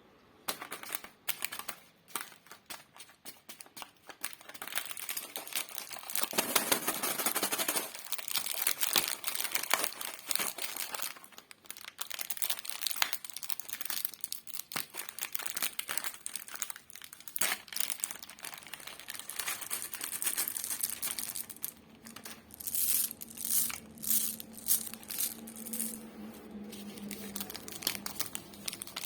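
Plastic lollipop wrappers being handled and crinkled, a dense run of crackles with a louder, fuller stretch about six to eight seconds in.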